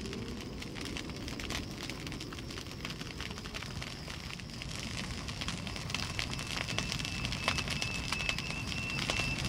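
Footsteps crackling and crunching on a leaf- and stone-strewn mountain trail, over a rushing noise of wind on the microphone. A thin, steady high-pitched tone sets in about six seconds in.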